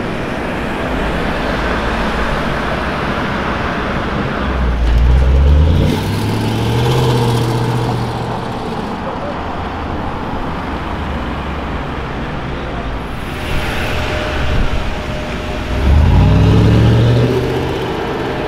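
Range Rover Sport SVR supercharged V8s accelerating away in city traffic, the engine note rising in pitch as each pulls off, once about five seconds in and again near the end, over steady street-traffic noise.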